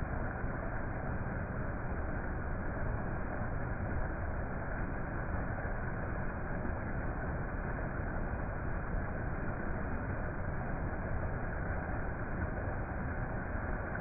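Running water, a steady even noise that does not change.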